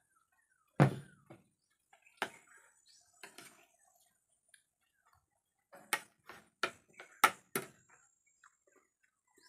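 Clinks and knocks of tableware during a meal: a loud thump about a second in as a mug is set down on the table, then single clicks and a quick run of five sharp clicks near the end from a spoon and fork against a plate.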